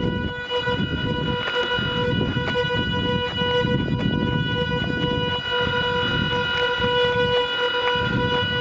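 Steady buzzing whine pitched near 500 Hz, with many overtones, from the brushless motors of an Arduino-driven DIY camera gimbal as they hold the camera level. An uneven low rumble runs beneath it.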